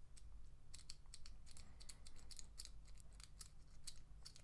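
Faint, irregular metallic clicks and scratches of a thin dog-tag lockpick working the pins inside a cheap padlock's keyway, with a tension wrench set in the lock.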